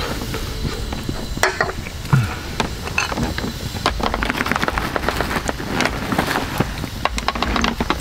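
Campfire crackling and popping, growing denser from about halfway in.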